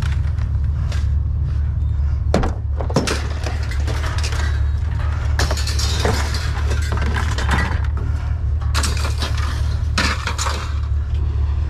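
Irregular clattering and clanking of scrap metal being handled and dropped, over a steady low hum.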